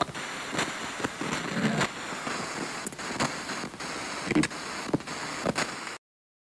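Crackling hiss with irregular sharp clicks and pops, like the surface noise of an old record or film soundtrack. The sound cuts off abruptly about six seconds in.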